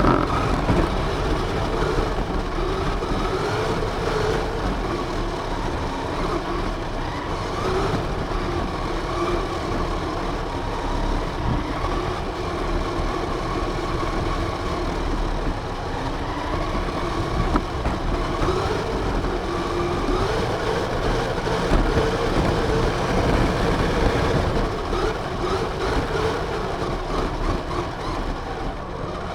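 RC car running with its drivetrain whining, the whine's pitch wavering up and down as its speed changes, over a constant rough rattling noise.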